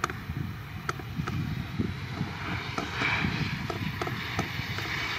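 Wind buffeting the microphone, with irregular pops, over the rumble of aircraft engines.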